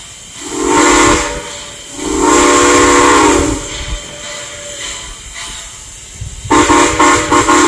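Steam locomotive whistle blowing three blasts, a chord of several tones: a short one, a longer one right after, then a third after a pause of about three seconds, over the low rumble of the approaching train.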